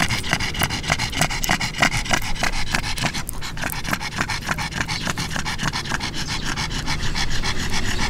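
A pug panting quickly and evenly, several breaths a second.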